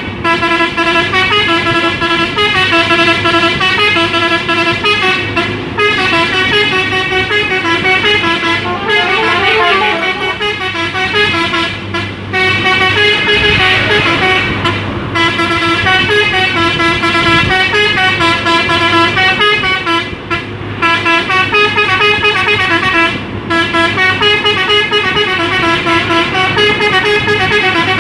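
Telolet horn on a Hino dump truck playing its stepping multi-tone tune over and over, with only brief gaps, above the hum of the truck's engine.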